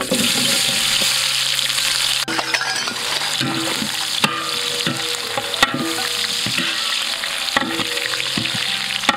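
Sliced onions hitting hot oil in a large aluminium pot: a loud sizzle bursts up at once, then settles into steady frying. A metal ladle stirs them, with several sharp scrapes and clinks against the pot.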